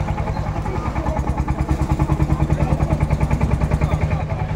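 An engine running steadily with a fast, even throb, a little louder through the middle and easing off near the end.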